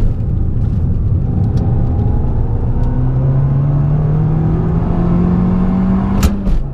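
Abarth 695 Biposto's turbocharged 1.4-litre four-cylinder engine accelerating hard, its note climbing steadily through the revs. Near the end comes a quick upshift on the dog-ring gearbox: a sharp click and the revs drop at once.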